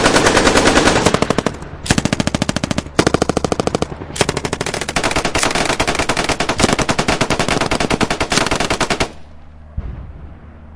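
Automatic gunfire, machine-gun style, in long rapid bursts with short breaks, stopping about nine seconds in. A couple of faint single thumps follow near the end.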